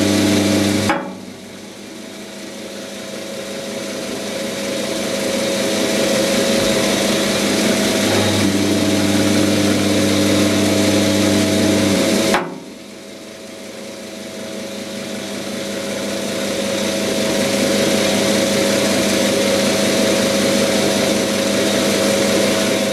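Quantum 210 x 400 benchtop lathe running, a steady motor and gear hum with several fixed tones. Twice, about a second in and again about halfway, the sound drops suddenly and then builds back up over several seconds.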